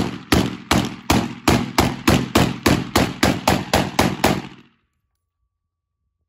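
A Draco AK-pattern pistol fired in rapid semi-automatic succession: about a dozen sharp shots, roughly three a second, that stop about four and a half seconds in.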